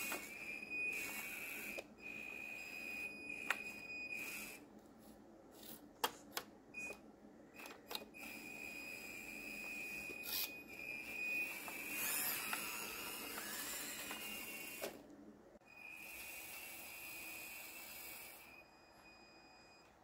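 Small electric motors of an RC model CAT skid steer whining at a steady high pitch, with gear noise underneath, starting and stopping several times as the machine drives and works its pallet forks. A few sharp clicks come between the runs.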